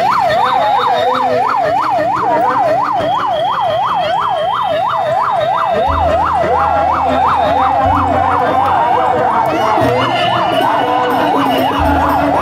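Electronic siren on its rapid yelp setting, sweeping up and down about two to three times a second and slowing slightly in the second half. A deep low hum comes in about halfway through.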